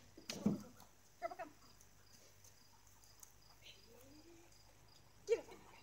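Faint, steady insect chirping throughout, with a soft thump about half a second in and a couple of brief, short pitched calls, one around a second in and a sharper one near the end.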